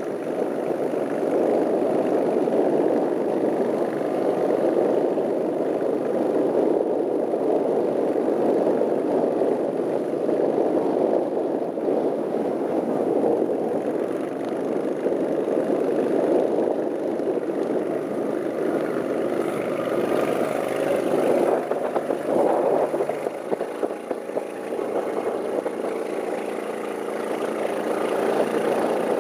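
Go Devil long-tail mud motor with twin exhaust running steadily under way, a loud, dense engine note. About twenty-three seconds in the engine eases off into a steadier, lower hum.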